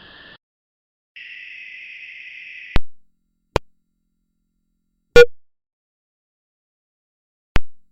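A steady band of hiss for about a second and a half, cut off by a sharp click. Three more sharp clicks follow a second or two apart; the third is the loudest and carries a brief wavering tone.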